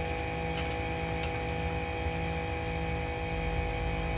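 Steady hum of a pressure washer running in the background, with a couple of faint clicks in the first second or so.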